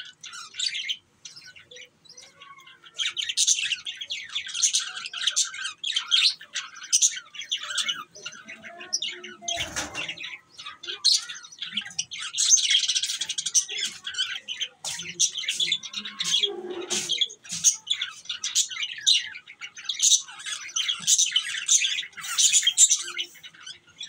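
A flock of budgerigars chirping and chattering: a dense, near-continuous stream of short high chirps and warbles, sparser for the first few seconds, then busy throughout.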